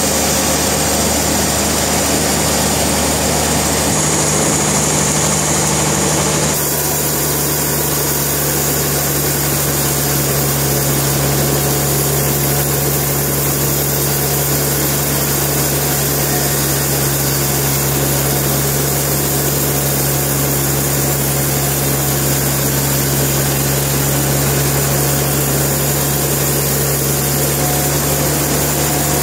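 Sawmill machinery running steadily and loudly, a constant low hum under a dense mechanical noise, changing abruptly in tone about six and a half seconds in.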